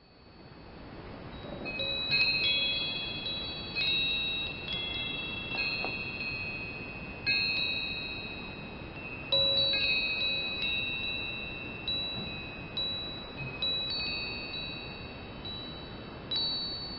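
Wind chimes ringing: high, clear metallic tones struck at uneven intervals of about a second or two, each ringing on and fading, with several notes overlapping. The sound fades in at the start.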